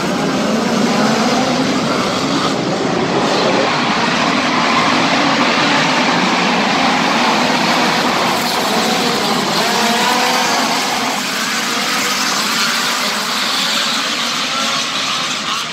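A pack of midget race cars racing on a dirt track, their engines loud and overlapping, rising and falling in pitch as the cars accelerate down the straights and lift for the turns.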